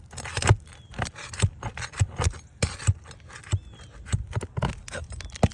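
Irregular sharp knocks and scraping as a roofing tool is worked under three-tab asphalt shingles to pull the roofing nails.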